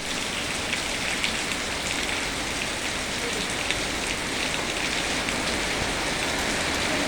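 Steady rain, with the ticks of individual drops hitting a surface heard through it.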